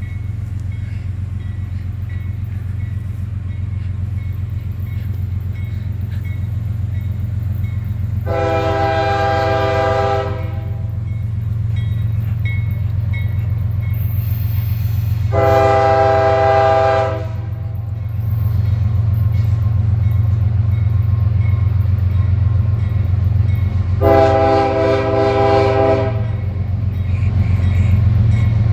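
CSX ES44AC diesel locomotive's air horn sounding three blasts of about two seconds each, several seconds apart, with a fourth starting right at the end. Under it, the train's steady low rumble, growing louder as it comes through the crossing.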